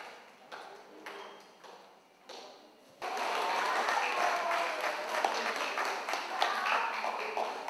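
An audience breaks into cheering and calling out, with some clapping, starting suddenly about three seconds in after quieter room sounds.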